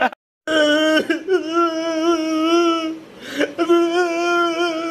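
A man's exaggerated wailing cry: two long held wails with a wavering pitch, broken by a short breath a little after three seconds in.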